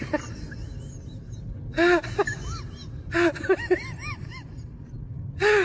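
Dogs barking in quick bursts of short, arched yelps, over a steady low hum.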